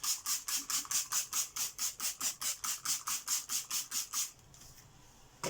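Rapid, rhythmic back-and-forth scrubbing on the vacuum cleaner's plastic body, about five or six strokes a second, as it is cleaned. The scrubbing stops about four seconds in, and a single knock follows near the end.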